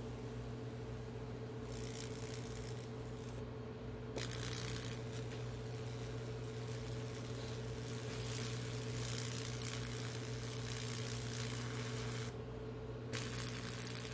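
High-voltage electricity arcing and crackling across the wet wood as a Lichtenberg figure burns into the board. It comes in three stretches: a short one about two seconds in, a long one from about four to twelve seconds, and a brief one near the end, all over a steady electrical hum.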